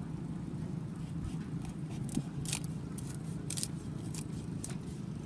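A knife cutting up a whole chicken on a wooden chopping board: half a dozen short, crisp snips and cracks, most of them from about two seconds in, over a steady low hum.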